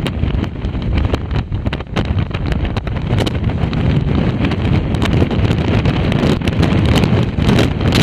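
Storm-force wind gusting straight onto the microphone: a loud, unbroken low rumble of buffeting with constant crackles, strengthening a few seconds in.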